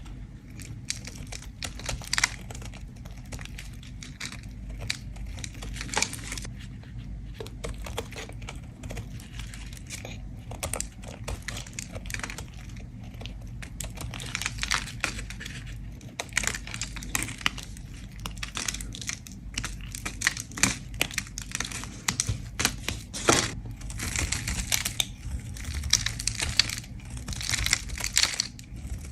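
A bar of soap being scraped, a continuous run of dry, crackling scrapes in quick, irregular strokes.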